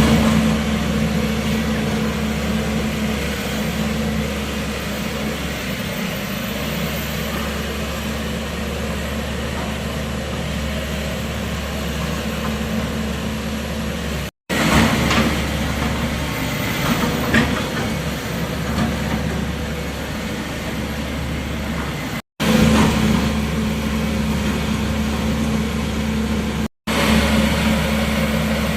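Excavator engine running steadily with a constant low drone, broken by three brief, abrupt dropouts to silence.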